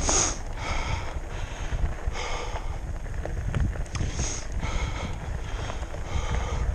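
A person breathing hard and wheezing from exertion on a climb, a loud breath about every second, over low wind rumble on the microphone.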